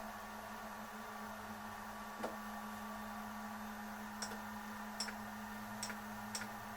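Steady electrical hum and whine from a homemade 3D printer's electronics under test, with one sharp click about two seconds in and four more in the second half.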